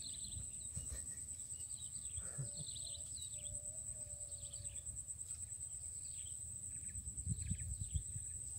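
Outdoor swamp ambience: a steady, high-pitched insect drone with scattered short bird chirps over a low rumble of wind on the microphone.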